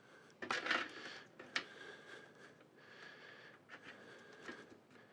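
Handling noise from PC case parts and fans: a short rustle under a second in, then a sharp click, with a few faint taps later over a faint steady hum.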